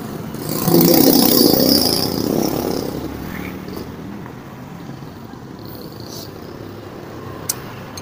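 A motor vehicle passing close by, its noise swelling about half a second in, loudest around a second in and fading over the next two seconds. A single sharp click near the end.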